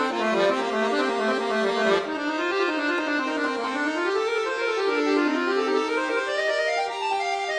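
Solo accordion playing fast runs of notes that climb and fall over sustained held notes, with a sharp accented attack about two seconds in.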